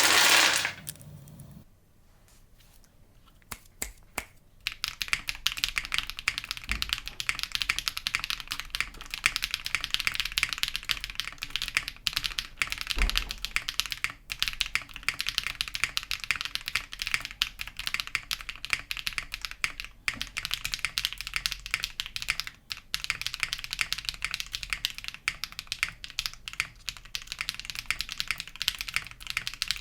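Fast typing on a mechanical keyboard with Keygeek Cheese V2 factory-lubed long-pole linear switches: a dense run of loud, bright, high-pitched clacks. The typing starts about four or five seconds in, after a brief loud sound at the very start and a few single key presses.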